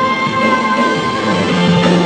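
Contemporary worship music from a band with guitar, holding long sustained notes and chords.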